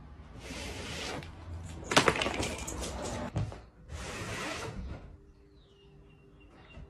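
Cardboard jigsaw puzzle pieces scraping and rattling against a tabletop as completed puzzles are gripped and lifted, with a sharp clatter of pieces about two seconds in.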